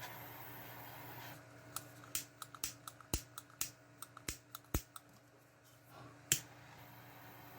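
About a dozen sharp, irregular clicks over some three seconds, then one louder click, over the steady hum of a room fan.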